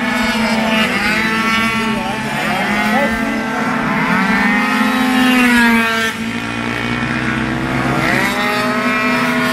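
Several small racing scooter engines revving out and passing along the track, their pitches rising and falling over one another as they change speed, over a steady low drone.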